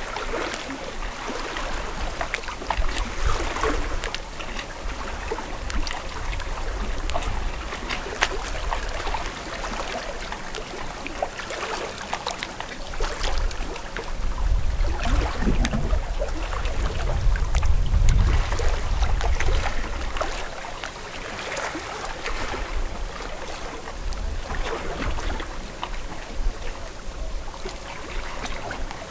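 Lake water lapping and splashing in small irregular slaps, with wind rumbling on the microphone, strongest in a gust about halfway through.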